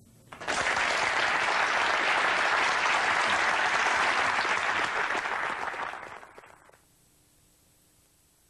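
A room full of people applauding, starting about half a second in, thinning out after about five seconds and cutting off abruptly near seven seconds, leaving only faint hiss.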